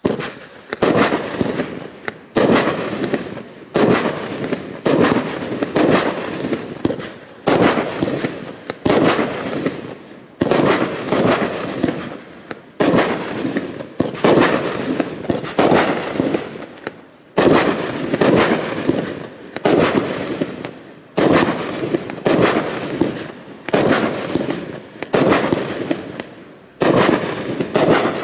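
'Distant Thunder' Category F3 firework battery (multi-shot tubes) firing shot after shot, about one every second or so. Each shot is a sharp bang that dies away before the next.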